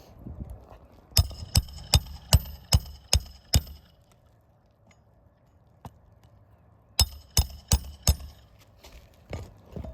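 Hammer striking metal in two quick runs, seven ringing blows and then four, nailing down an asphalt roof shingle at the end of a repair.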